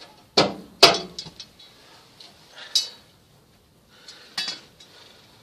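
Metal-on-metal clanks and clinks as a loosened beadlock ring is worked off an all-terrain vehicle's wheel rim: two loud ringing clanks within the first second, then a few fainter clinks around three and four and a half seconds in.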